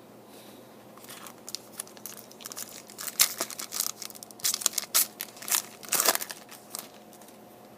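Foil trading-card pack wrapper crinkling and tearing, in irregular crackly bursts, as a pack is opened and its wrapper handled.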